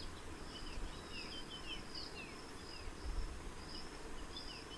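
Faint birdsong: small birds chirping in short falling notes over a steady high-pitched hum.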